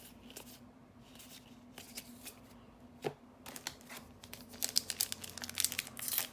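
A few light taps of cards being handled, then from about halfway a Double Masters 2022 draft booster pack's wrapper being torn open and crinkled, loud and crackly.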